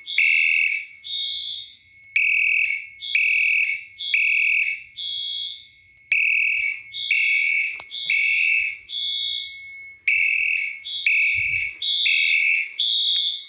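Two fire alarm horns, a Wheelock AS-series horn strobe and a Potter horn, sounding the temporal-3 evacuation pattern after a pull station activation. Each gives three short tones, then a pause, repeating about every four seconds, and the two horns, one higher-pitched than the other, are not in step. A low thump sounds near the end.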